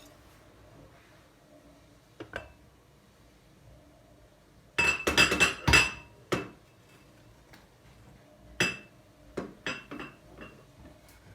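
Glass and crockery clinking as dishes are handled: a quick run of sharp ringing clinks about five seconds in, then several single knocks and clinks near the end, with quiet between.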